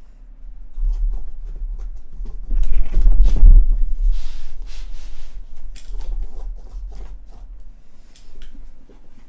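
A cat moving about on a wooden desk and climbing into a wicker basket: a string of small knocks, clicks and rustles, loudest and busiest about three seconds in as it gets into the basket, over a low steady hum.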